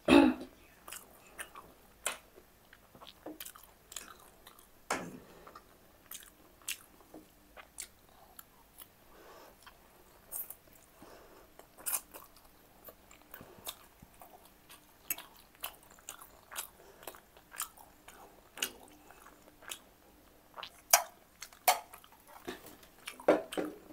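Close-miked chewing of black bean noodles: wet mouth sounds with many scattered sharp clicks and smacks. A loud knock right at the start, and another about five seconds in.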